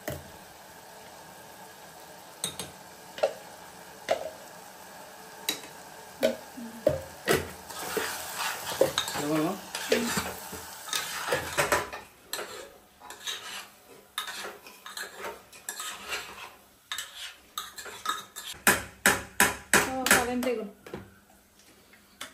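Metal spoon stirring food in a pressure cooker pot, clinking and scraping against the metal, with a faint sizzle. A steady hiss under the first half stops about halfway through, and the clinks come thick and fast near the end.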